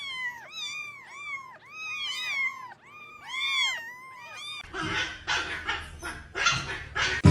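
A young pet giving a quick run of short, high whimpering cries, each rising and falling, about three a second. Partway through they stop and give way to noisy scuffling and rustling.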